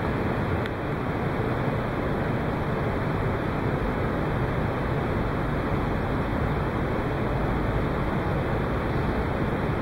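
Steady, even background noise of a large hall picked up by the camera's microphone, with no distinct events apart from a faint tick under a second in.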